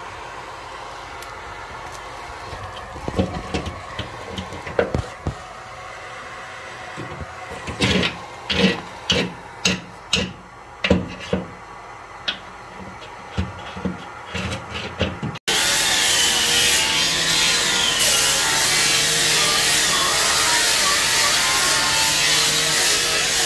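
Sharp metallic knocks on a red-hot pipe stub in a steel bulkhead: a few scattered at first, then a quick run of about two to three a second. About two-thirds of the way in the sound cuts to a loud steady rush with a faint wavering whistle, a ventilation blower running in a ship's passageway.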